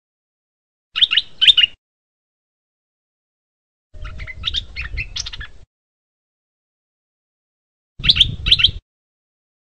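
Stripe-throated bulbul calling in three separate bursts of sharp chirps: a quick pair about a second in, a longer run of notes around the middle, and another quick pair near the end, with silence between them.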